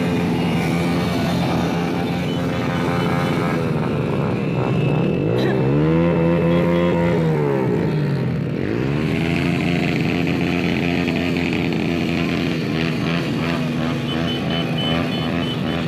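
Many motorcycle and scooter engines running together on the road in a convoy, a steady drone. One engine revs up and back down about halfway through.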